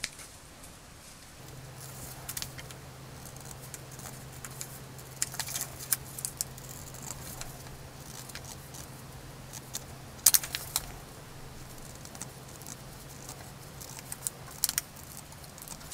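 Scissors snipping through thin knit fabric and a pinned paper pattern: quiet, scattered cuts and blade clicks. A faint steady low hum sits beneath them from about a second and a half in.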